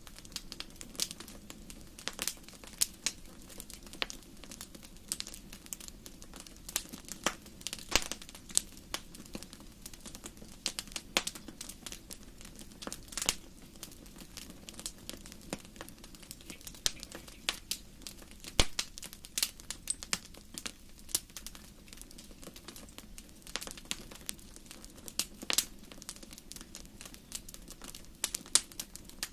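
Campfire burning, its wood crackling with frequent irregular sharp pops over a low, steady hiss of flame.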